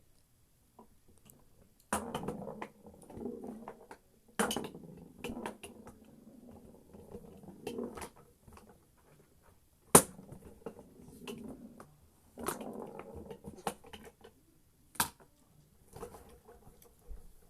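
Mini foosball table in play: sharp plastic clacks as the ball is struck, each followed by a few seconds of rattling as the ball rolls and bounces around the small table, four times over.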